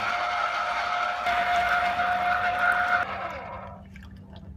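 Mondial E-20 85 W electric citrus juicer motor running under load as a halved orange is pressed onto its spinning reamer, with a steady whine and the gritty rub of peel and pulp. About three seconds in it stops, the whine falling in pitch as the reamer spins down.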